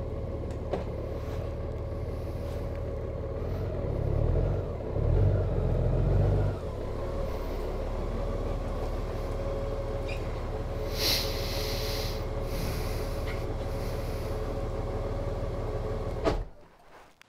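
Honda Gold Wing's flat-six engine idling, swelling louder for about two seconds as the bike is ridden forward, then switched off near the end and falling away quickly.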